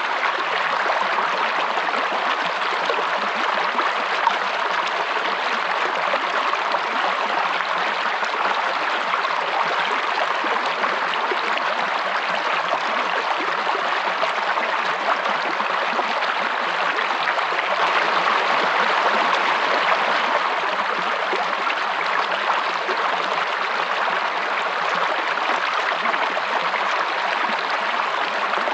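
Stream of running water, a steady rush with fine splashing and no break, growing a little louder for a few seconds past the middle.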